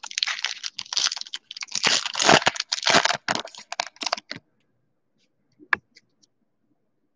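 Foil wrapper of a trading-card pack crinkling and tearing open as the cards are pulled out, a dense crackle for about four seconds. About a second later there is one light tap.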